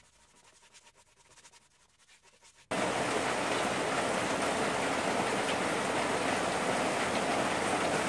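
Faint strokes of a paintbrush on wood. About three seconds in, a sudden switch to heavy, steady rain that runs on past the end.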